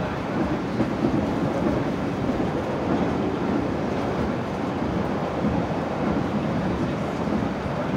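A CAF-UTA 3700 light-rail tram running at speed, heard from inside the car: a steady rumble of the running gear on the track.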